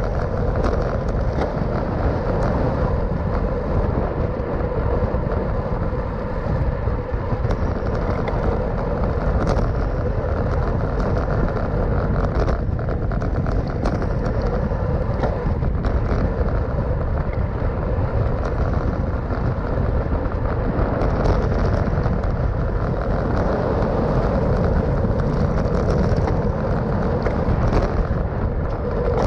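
Steady rushing wind noise over the microphone of a camera on a road bike riding at about 42 km/h, mixed with road noise.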